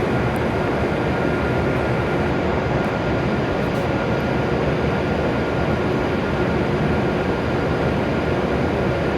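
E7 series Shinkansen train at the platform, a steady even hum and rush from its running equipment with a faint held tone, with no change in level throughout.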